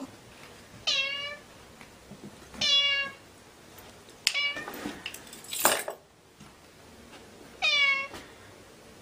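Ginger-and-white domestic cat meowing, four short meows that each fall in pitch, spaced a second or more apart, with a brief noisy scuff around the middle.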